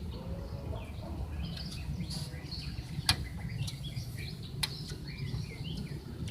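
Short, high chirps from a lovebird, scattered through, over a steady low rumble. Two sharp clicks come about three and four and a half seconds in.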